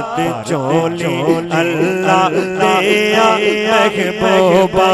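Male voice singing a devotional Punjabi naat through a microphone, drawing out long ornamented notes without clear words over a steady low drone.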